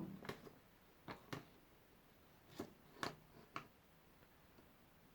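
Six or so faint, sharp clicks and ticks spread over a few seconds in a near-quiet workshop, from hands working on a paper template with scissors and pencil.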